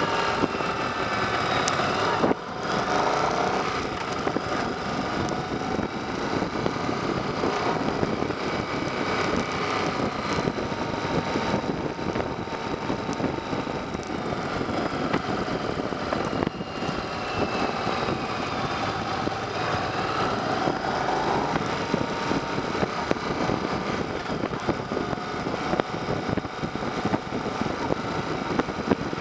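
Yamaha XV750 Virago's air-cooled V-twin engine running under way on the road, its pitch rising and falling with the throttle through the bends, over steady wind and road noise. The loudness dips briefly about two seconds in.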